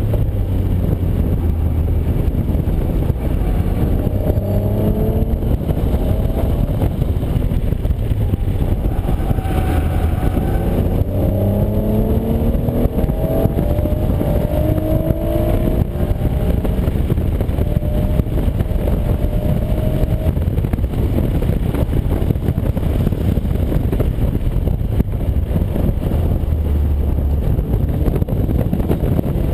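Acura NSX's mid-mounted V6 with a Comptech exhaust under hard acceleration, heard from inside the cabin over heavy road and wind rumble. The engine note climbs in pitch several times between about 3 and 16 seconds as the car pulls down the track.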